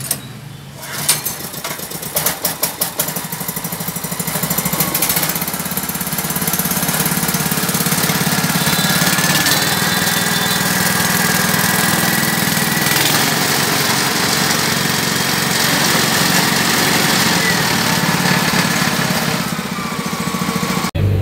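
Small petrol engine pull-started with the recoil starter: it fires with a few rapid strokes, catches, and then runs steadily while driving a disc flour mill. Its running note rises a little about nine seconds in and drops back near the end.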